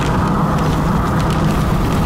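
Inside a car cabin while driving on a wet highway: a steady drone of engine, tyres and wind noise, with scattered light taps of raindrops on the windshield.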